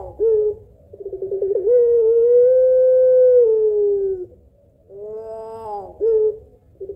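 Puter pelung, a long-voiced Barbary dove, cooing. A short note comes first, then a quick stuttering start swells into one long drawn-out coo of about two seconds that sinks a little at its end. About five seconds in a rising note and a short note repeat the phrase, and the stutter starts again at the end.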